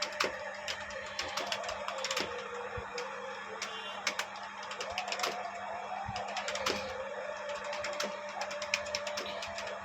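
Computer keyboard keys clicking in fast, irregular touch-typing, several keystrokes a second, during a timed typing test.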